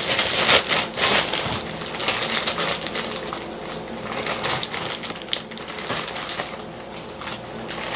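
Plastic courier mailer bag rustling and crinkling with irregular crackles as it is handled and opened by hand, loudest in the first second or so.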